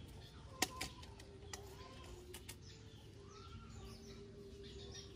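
Faint bird chirps and a steady low hum. A sharp click about half a second in is the loudest sound, and a few lighter clicks follow.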